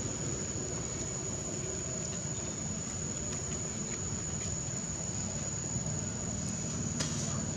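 Insects singing in one steady high-pitched whine, over a low rumbling background noise.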